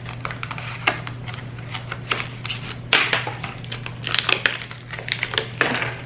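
Plastic packaging being handled and pulled open: irregular crinkling and crackling with sharp clicks as a clear plastic clamshell and the wrapping inside it are worked open, over a faint steady low hum.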